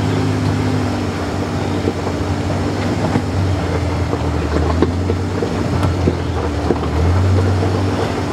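Kawasaki Mule Pro-FXT side-by-side's three-cylinder engine running steadily while it drives along a dirt trail, with a few short knocks and rattles from the bumpy ride. The engine gets a little louder about seven seconds in.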